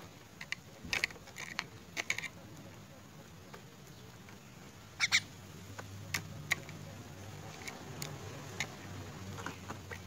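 A common myna's beak pecking and tapping at insects on a plastic cup and the mesh under it: a scatter of sharp irregular clicks, the loudest double tap about halfway through.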